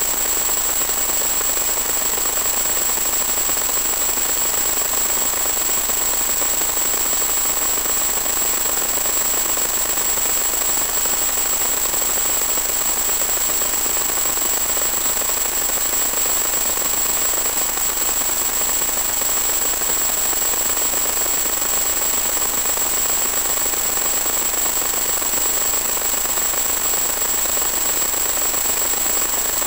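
Steady hiss-like static from the audio channel of an analog 1.2 GHz FPV video link, with a constant high-pitched whine over it.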